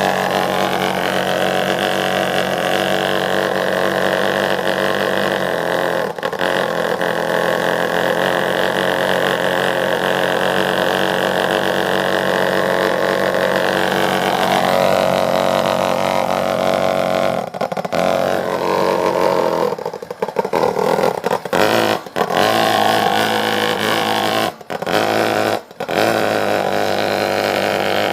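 Lennox pulse furnace's cast-iron combustion chamber, muffler removed, running hot on natural gas: a loud, steady droning buzz of rapid pulse combustion. Its tone shifts about halfway through, and it drops out briefly several times near the end.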